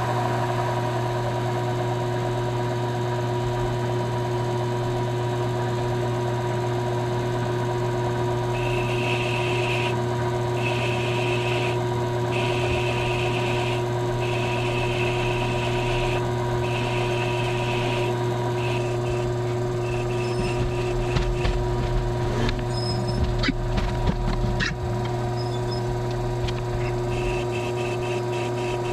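Small benchtop metal lathe running steadily with a low hum, spinning a pool cue. From about eight seconds in, a tip shaper held against the spinning leather cue tip adds a high scraping hiss in repeated strokes with short breaks, and a few clicks and knocks come near the end.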